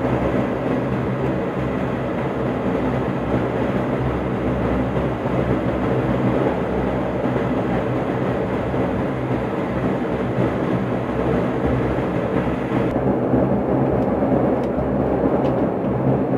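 Cabin noise of a Dash 8-Q400's Pratt & Whitney PW150A turboprops running steadily at taxi power: an even drone made of several steady low propeller tones over a rumble. The upper hiss dulls about thirteen seconds in.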